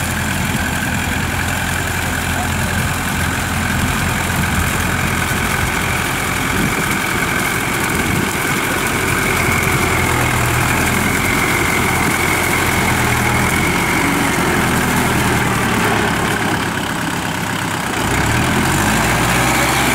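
Kubota compact tractor's diesel engine running steadily as it drives a rear rotary tiller through a flooded, muddy paddy, with a high whine above the low engine note. The engine note shifts near the end.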